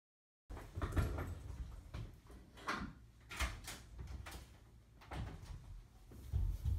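Hotel room door being unlatched and pulled open, with handle clicks, knocks and the rustle of carried bags, starting after half a second of silence.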